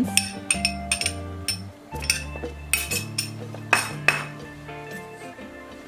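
Background music with held notes, under a series of light clinks like a spoon tapping against cookware.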